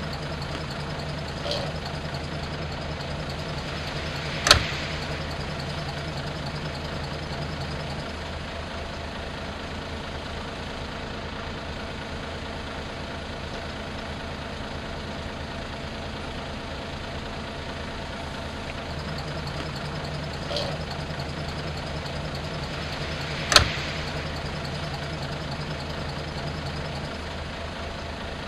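Noto Railway NT100-series diesel railcar's engine idling steadily at a standstill, with two sharp knocks, one about four and a half seconds in and one near 24 seconds.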